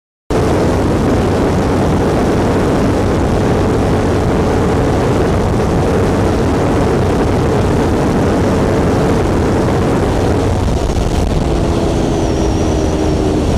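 Kawasaki Ninja 400's parallel-twin engine held near top speed, about 195 km/h in sixth gear, buried under heavy wind rush on the onboard microphone. The sound cuts in abruptly just after the start, and near the end the engine note drops slightly as the bike eases off.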